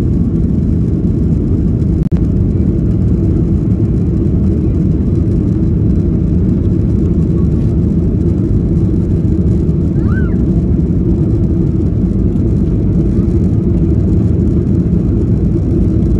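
Steady low roar inside the cabin of a Boeing 737-800, from its CFM56-7B turbofan engines and the airflow over the fuselage, cutting out for an instant about two seconds in.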